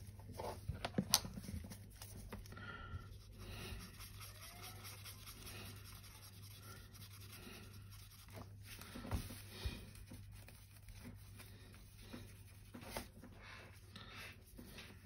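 Faint scratching and dabbing of a paintbrush mixing grey paint on a palette, with a few light clicks and knocks of paint bottles and tools on the desk, the sharpest about a second in.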